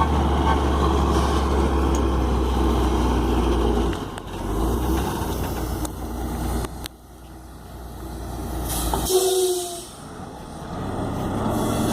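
Heavy diesel engines of tractors towing a truck running steadily; the engine note changes about four seconds in and drops away about seven seconds in, then the noise builds again. A brief burst of hiss comes about nine seconds in.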